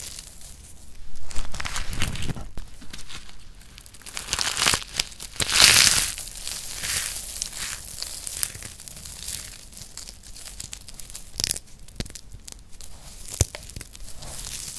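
Dry, crispy recycled soap shavings being squeezed, crushed and rubbed between the fingers: dense crackling and crunching in irregular surges, loudest about a third of the way in. Lighter crackling follows, with a few sharp clicks near the end.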